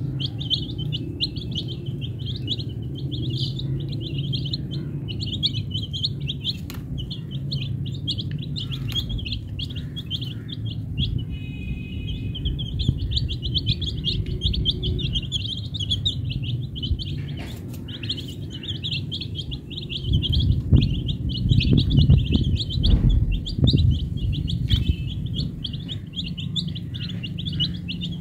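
A flock of domestic chicken chicks peeping continuously in rapid, high cheeps. Underneath is a low rumbling noise that swells about two-thirds of the way through.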